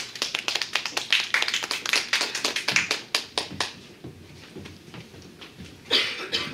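A small audience clapping, a dense patter of hand claps that thins out and stops about three and a half seconds in. A short burst of noise comes near the end.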